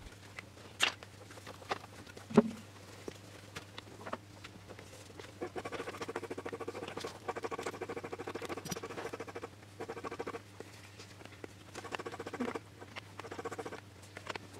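Handling of plastic covering film and small hand tools on a workbench: scattered clicks and taps, the loudest a knock about two seconds in, then stretches of fast, scratchy crackling of the film being handled and cut.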